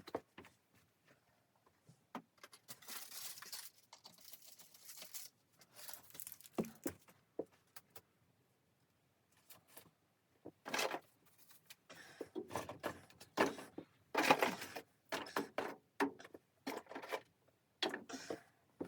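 Handling noises in a small enclosed space: irregular rustling and crinkling with small clicks and clinks, coming in short bursts with quiet gaps between them.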